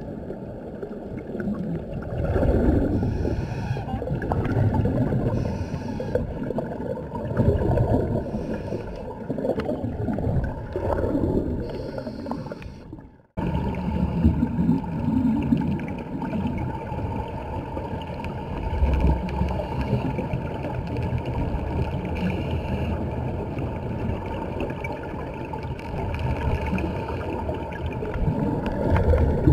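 Muffled underwater sound of a diver's exhaled air bubbling, swelling every two to three seconds, with a brief break about 13 seconds in.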